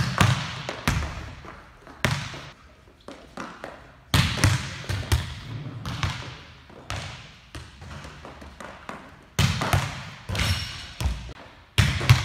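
Volleyballs being hit and bouncing on a hard gym floor: sharp slaps and thuds at irregular intervals, several clustered together, each trailing off in echo.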